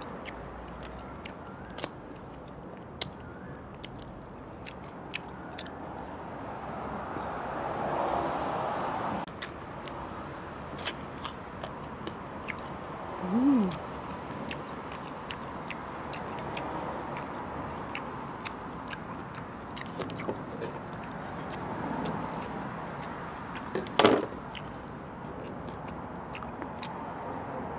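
Close-miked mouth sounds of a person eating lobster: chewing and biting with many small wet clicks and smacks. A brief hum comes about 13 seconds in, and a louder sharp snap about 24 seconds in.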